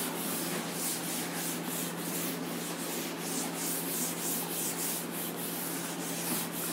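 Cloth duster rubbing chalk off a chalkboard in quick back-and-forth strokes, about three a second.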